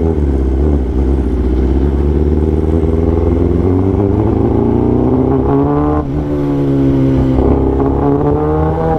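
Kawasaki Ninja ZX-10R's inline-four with an Austin Racing titanium exhaust, heard while riding. The engine's pitch climbs as it accelerates, drops sharply about six seconds in at a gear change, then climbs again.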